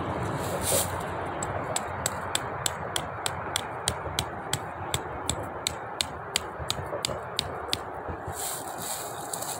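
Steady road-traffic noise from a highway bridge, with a run of about twenty sharp, evenly spaced knocks, about three a second, starting about a second and a half in and stopping near the end.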